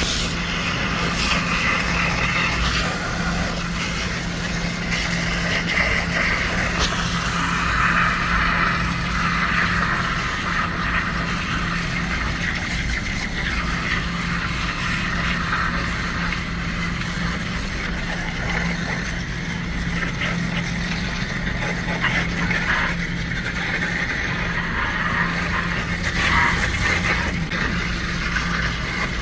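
Water jet from a spray wand hissing and splashing steadily against the fins of a supermarket produce case's evaporator coil as the dirty coil is washed. A steady low hum runs underneath.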